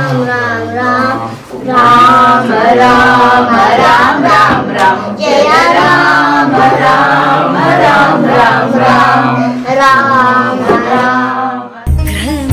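Devotional singing with a steady low drone beneath the voices. Near the end it cuts abruptly to a different piece of music.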